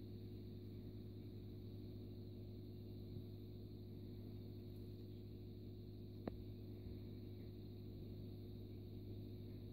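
Steady low background hum with a single short click about six seconds in.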